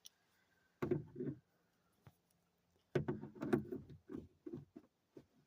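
An adjustable wrench twisting a plastic coat hook a quarter turn in a car's interior trim panel: two short bouts of clunking and knocking, about a second in and again from about three to four seconds.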